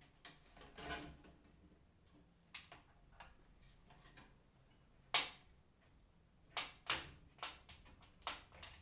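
Irregular light clicks and knocks of small hard parts being handled and fitted during PC assembly, about a dozen in all, the sharpest about halfway through and a quick run of them near the end.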